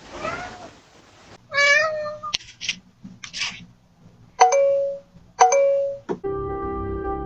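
A cat meows several times in short, separate calls, with brief noisy bursts between them. Steady music starts just before the end.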